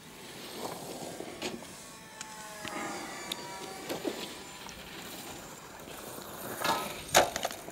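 Faint whine of the brushless electric motor and propeller of an XK A600 DHC-2 RC model plane in flight, its pitch shifting a little about three seconds in. A few sharp clicks close by, the loudest near the end.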